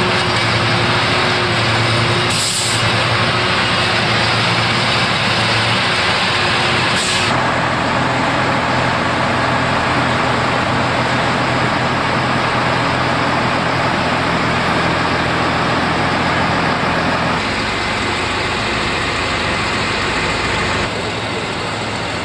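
Heavy rail-work machinery running steadily, with short hissing air releases about two and a half and seven seconds in. The sound steps down in level twice near the end.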